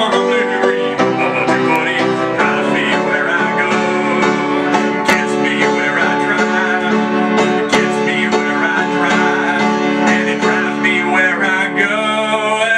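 Upright piano played live: an instrumental passage of sustained chords.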